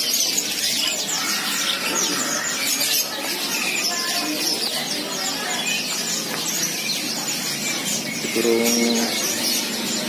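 Canaries and other small caged songbirds chirping and singing, many at once, in a dense and continuous chorus. A brief lower-pitched call stands out near the end.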